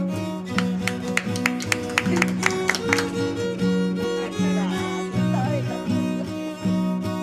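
Instrumental background music led by bowed strings, violin over cello, moving through a repeating pattern of held low notes. A quick run of sharp clicks sounds in the first three seconds.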